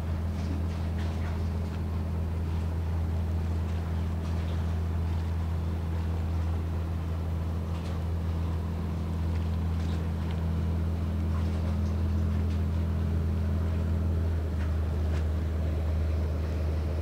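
Steady low drone of a large ferry's engines, with faint scattered ticks and chirps above it.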